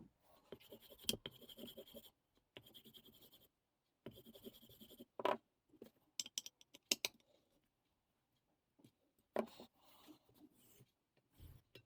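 Intermittent light scratching and rubbing in short spells, with a few small clicks.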